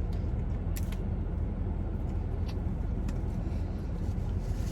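Steady low drone of the air conditioning running in a car, with a few faint clicks from eating.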